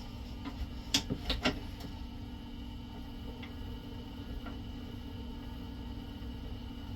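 Bucktools wet sharpener's motor running with a steady hum, with three sharp clicks about a second in and a couple of faint ticks later.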